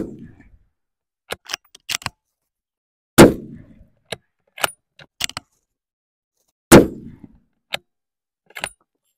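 A Bergara B-14 Wilderness Ridge bolt-action rifle in .300 Win Mag firing. The tail of one shot rings off at the start, then two more shots follow about three and a half seconds apart. After each shot come short bursts of metallic clicks as the bolt is cycled to chamber the next round.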